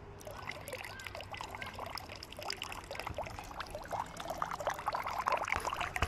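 Push-button drinking fountain running, water splashing and trickling into its stone basin. It starts just after the button is pressed and gets louder towards the end.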